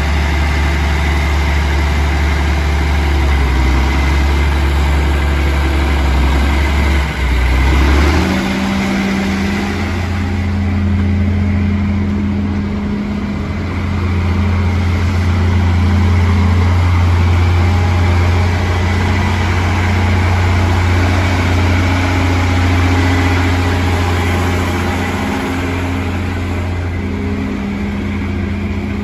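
John Deere 4520's six-cylinder diesel engine running, first at a steady low speed, then revving up about eight seconds in and holding a steady higher speed as the tractor drives.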